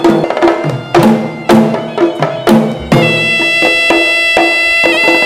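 Sri Lankan hevisi drums struck about twice a second, then about three seconds in a horanewa shawm enters with a shrill, sustained reedy melody with quavering ornaments over the drumming.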